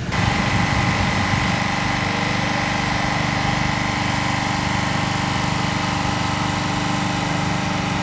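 Small engine of a hydraulic power pack running steadily to drive the hydraulic jacks under the derailed tram. It picks up sharply at the start and then holds an even pulsing beat, with a steady whine over it.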